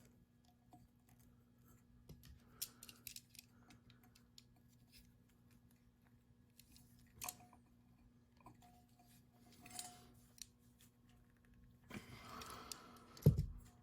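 Small clicks and rustles of fan wires and crimp-on connectors being handled and worked with hand tools, with a sharp bump near the end.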